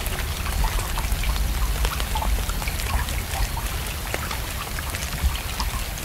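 Water splashing down over rock in a small cascade: many separate drop sounds over a steady low rush.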